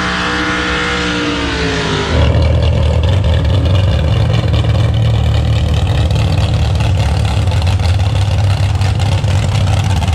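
A pulling truck's engine at high revs further down the track, its note dipping as it lets off about two seconds in. It is then replaced by a close engine idling with a louder, steady deep rumble.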